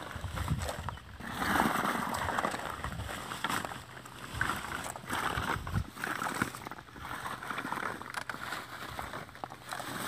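Sun-dried coconut halves knocking and clattering against each other as they are scooped up by hand and dropped into a cloth sack, in irregular bursts.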